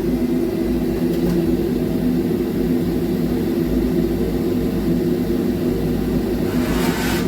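Machinery of an automatic French-fry production line running: a steady mechanical hum made of several steady tones over a low rumble. A short hiss swells up near the end.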